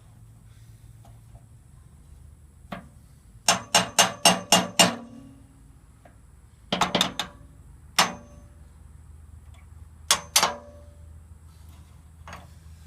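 Hammer tapping on metal parts of a loader bucket hydraulic cylinder, tapping a part into place during reassembly with new seals. A quick run of about six taps, then a close cluster of taps, then a single tap and a pair, each with a brief metallic ring.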